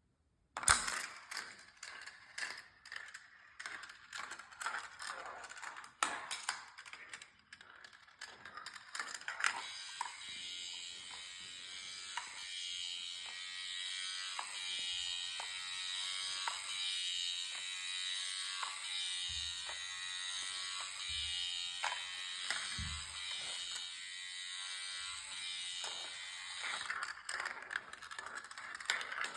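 Gravitrax marble run: plastic marbles clicking and clattering along plastic track pieces. For most of the middle the motorized elevator runs steadily with a rhythmic ratcheting whir. Dense clicks of marbles return near the end.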